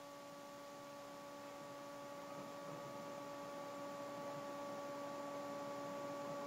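Faint steady electrical hum: a few steady tones over a low hiss that grows slightly louder.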